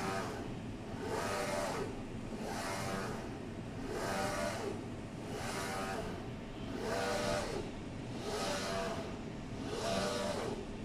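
UV6090 flatbed UV printer's print carriage sweeping back and forth across the bed, its drive whining up and then down in pitch with each pass, about one pass every second and a half, over a steady low hum.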